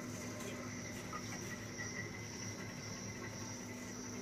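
Insects chirring steadily, a continuous high-pitched trill, over a faint steady low hum.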